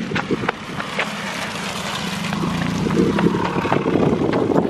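Modified Subaru WRX's turbocharged flat-four and aftermarket exhaust running as the car rolls slowly past, its drone growing louder until about three seconds in, then holding steady.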